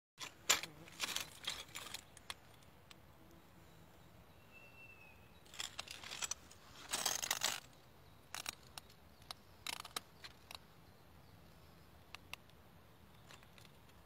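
Broken sheet glass clinking and crunching in short, irregular bursts of sharp clicks, the loudest cluster about seven seconds in.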